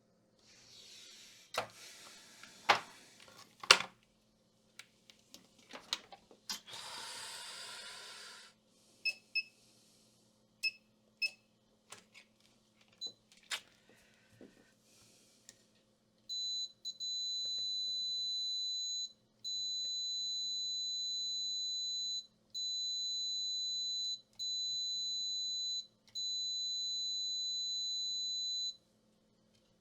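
Multimeter continuity beeper sounding in long, steady, high-pitched tones, about five in a row with short breaks, as probes are held on points of a laptop motherboard. Before this come sharp clicks of tools and two short bursts of hiss, over a faint steady electrical hum.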